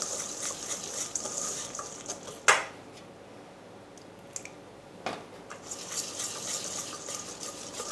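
Wire whisk stirring and scraping through shiratamako and water in a stainless steel bowl, with two sharp clinks about two and a half and five seconds in. The whisking is quieter between the clinks.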